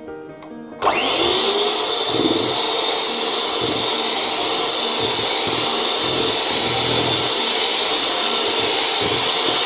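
Electric hand mixer switched on about a second in, then whirring steadily as its beaters whisk a runny egg-yolk batter in a plastic bowl.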